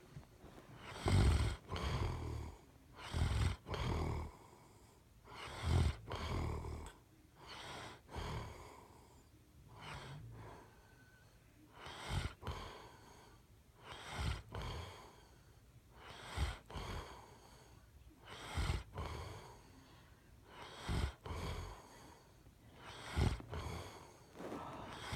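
A person snoring in a steady rhythm, a loud rasping snore about every two to two and a half seconds.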